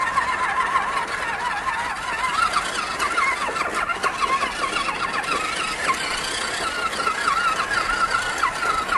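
Small electric motor and gearbox of an RC scale truck whining as it crawls over loose rocks, the pitch wobbling up and down quickly as the throttle and load change.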